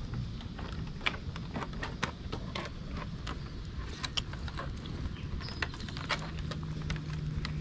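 Basset hounds play-wrestling on a wooden deck: irregular clicks and scuffling as claws and bodies tap and shift on the boards. A low steady hum comes in about six seconds in.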